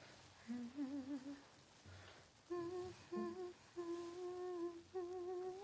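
A woman humming a slow melody: a short wavering phrase about half a second in, then a run of long held notes with brief breaks.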